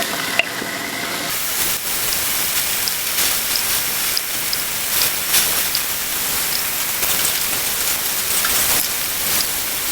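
Pork chops sizzling on a gas grill: a steady hiss of frying grease, with scattered small crackling pops.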